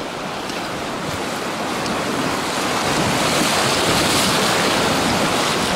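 Whitewater river rapids rushing, a steady noise of churning water that grows gradually louder.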